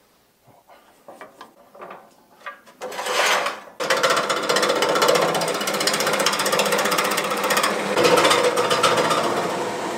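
A few light knocks and clicks as the log blank is fitted on the wood lathe, then, from about three seconds in, a gouge roughing down the spinning bark-covered log with a rapid, even chatter from the interrupted cut on the uneven wood.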